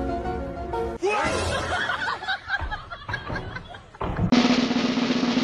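Music with drums, which changes abruptly twice: a held chord breaks off about a second in, a busier passage with short pitch sweeps follows, and near the end a steady low drone over a noisy hiss takes over.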